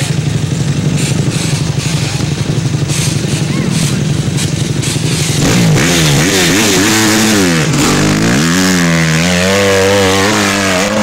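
A hill-climb vehicle's engine running with a steady pulsing beat. About halfway through it revs up hard for the run, its pitch rising and falling, dipping once, then climbing again and holding high.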